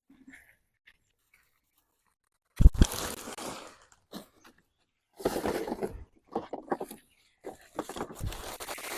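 Hands digging and rummaging through loose garden soil and potato plants, giving uneven bursts of crunching and scraping with a few dull thuds. The bursts start about two and a half seconds in, after a near-silent stretch.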